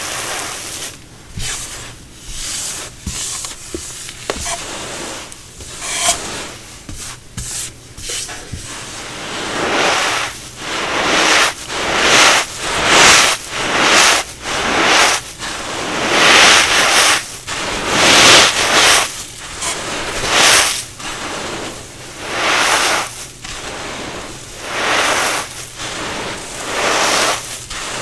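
Brittle, fragile cornstarch crunchies being crushed and crumbled, a string of gritty, crunchy bursts. They are lighter and quicker at first, then louder at about one a second from around a third of the way in.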